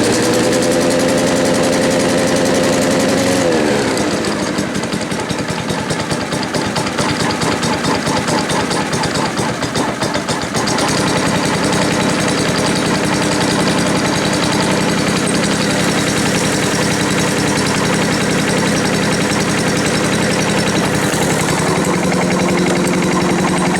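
Challenge Xtreme 3.5 hp four-stroke lawn mower engine running. About three seconds in its note drops and it runs rougher and a little quieter for several seconds, then picks back up and runs steadily again.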